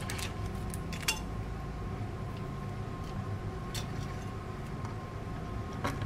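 A few light clicks and knocks from a motherboard with a tower CPU cooler on it being handled and turned, over a steady low hum.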